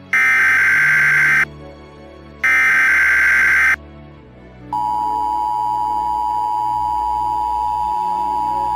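Emergency Alert System SAME header data bursts: two raspy, buzzing digital bursts a little over a second each, about two seconds apart. About two-thirds of a second after the second burst, the steady two-tone EAS attention signal begins. Together they announce a tornado warning, with low ambient music sustained underneath.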